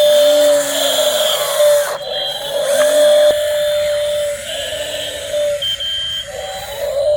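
Servo motors of a radio-controlled excavator model whining in short spurts as the controls are worked. The whine holds one pitch, stopping and starting every second or so, with a lower tone that rises and falls as the motors speed up and slow down.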